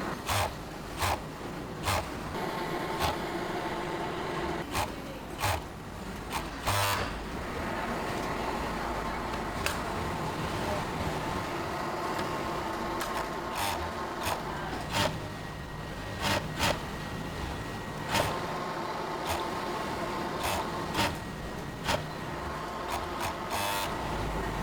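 Factory machinery running with a steady hum and faint whine, broken by sharp clacks at irregular intervals.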